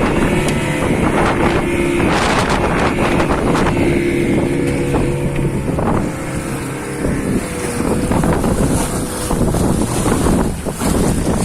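Fishing boat's engine running steadily, with wind buffeting the microphone and occasional knocks.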